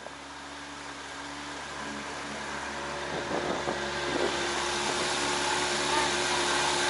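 Small outboard motor running steadily and growing gradually louder, with water rushing past the hull.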